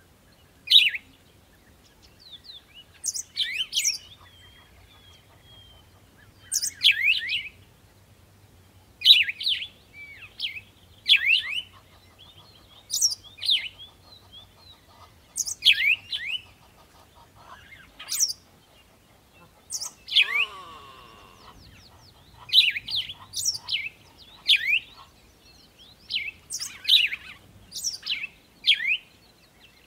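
A bird calling over and over: short, sharp, high chirps that sweep down in pitch, often in pairs, every second or two. About two-thirds of the way through, a different, longer call with several falling glides sounds once.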